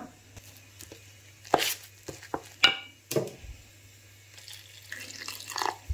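Metal spoon stirring rice flour and water into a batter in a stainless steel bowl, with a few separate clinks and scrapes against the bowl and a rougher stretch of stirring near the end.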